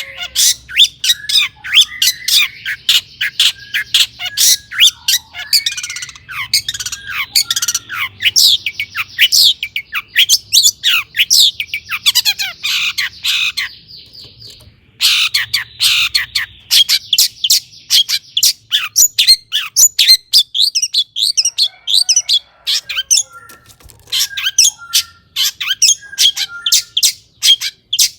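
Long-tailed shrike singing: a fast, unbroken run of short, sharp notes, pausing briefly about halfway through.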